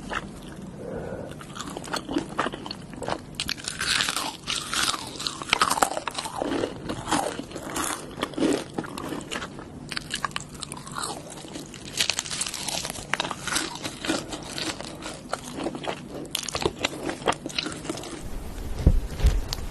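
Close-miked eating: crunchy bites and chewing, a steady irregular run of crackling crunches, with a low thud near the end.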